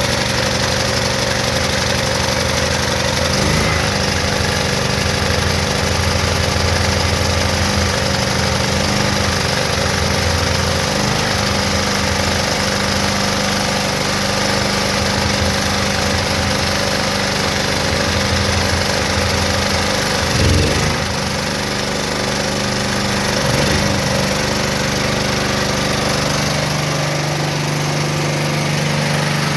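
Portable generator's gasoline engine running on propane, fed through a tube pushed into its air intake instead of a conversion kit. It runs steadily, its note shifting a few times.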